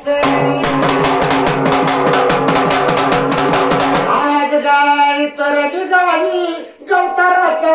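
A double-headed drum beaten fast with two sticks, about eight strokes a second, under a singing voice. About four seconds in the drumming stops and the voice carries on singing alone.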